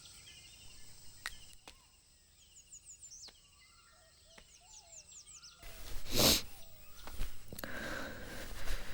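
Quiet outdoor ambience with small birds chirping faintly in short repeated series. About six seconds in, the background grows fuller and a brief, louder noise breaks in once.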